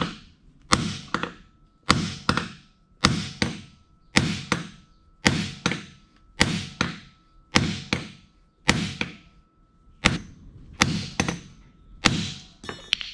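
Hammer blows on a steel pumping-unit wrist pin and its roller bearing set on a steel block used as an anvil, metal on metal. The blows come in pairs about once a second, each ringing briefly.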